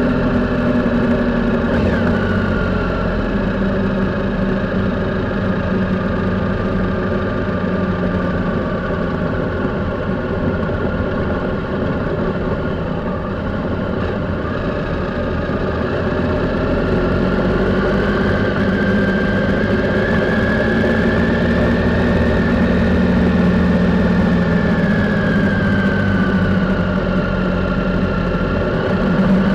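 Triumph Sprint motorcycle's three-cylinder engine running at steady, moderate revs on the move, heard from a camera on the bike. The engine note sags slightly in the first few seconds, rises about two-thirds through, then falls back and climbs again at the very end.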